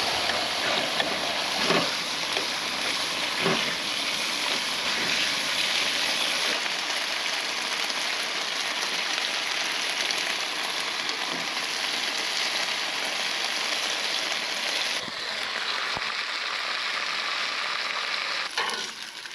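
Peameal bacon sizzling steadily in a hot frying pan, with two light knocks in the first few seconds. The sizzle drops away shortly before the end.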